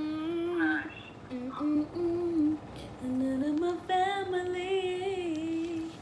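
A woman's voice singing a slow melody: a few short phrases, then a longer held line in the second half.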